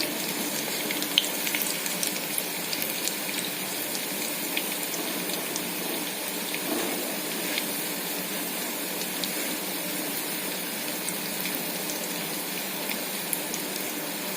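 Banana flower fritters frying in hot oil: a steady sizzle with small scattered pops and crackles.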